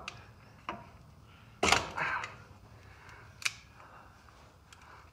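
Vise grip locking pliers clamped on a steel rod clicking and knocking against the stuck plastic hydro filter cap as they are worked round to turn it loose: a few scattered sharp clicks, the loudest about a second and a half in.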